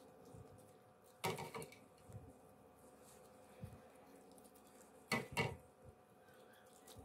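Two brief bursts of light clattering knocks in a kitchen, one about a second in and another near the end, over a faint steady hum.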